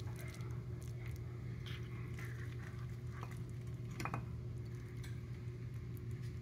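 Serving spoon digging into a tortilla-chip, cheese and rice casserole in a pan and lifting a portion onto a plate: soft squishing and scraping with a few light clicks of the spoon against the pan, the sharpest about four seconds in, over a steady low hum.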